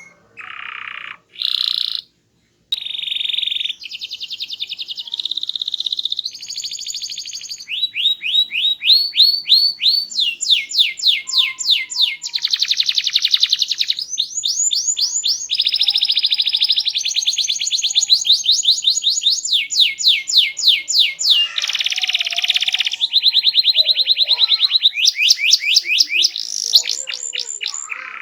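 Domestic canary singing a loud, varied song: rapid trills and rolls alternating with rows of quick rising notes, several a second, switching from one phrase to the next every second or two. The song breaks off briefly about two seconds in.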